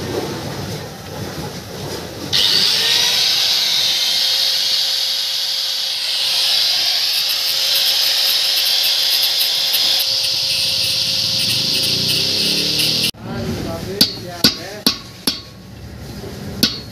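Handheld angle grinder switched on about two seconds in, grinding at the pickup's axle hub nut with a loud, steady high whine for about ten seconds, then cut off suddenly. Then about four sharp metal knocks as a punch is driven against the hub nut to loosen the hub.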